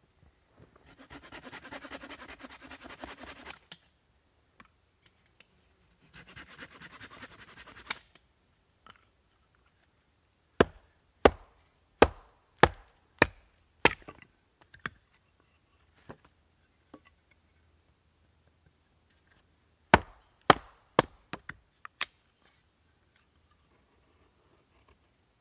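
Two spells of quick rasping strokes, then the sharp knocks of a wooden baton striking the spine of a knife driven down through a small round of wood to split it: a run of about six strikes, and about five more near the end.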